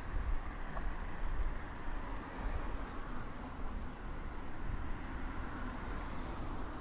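Street traffic: cars driving past on the road close by, a steady wash of tyre and engine noise with a low rumble underneath.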